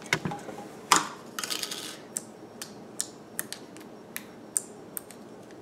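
Fingers poking blue borax slime in a small plastic cup, making a string of sharp clicks and pops, about two or three a second, after some handling of the plastic container in the first couple of seconds.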